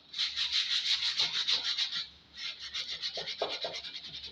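80-grit sandpaper rubbed back and forth over a hatchet's wooden handle in quick scraping strokes, stripping off the remaining finish. The strokes pause briefly about two seconds in, then carry on.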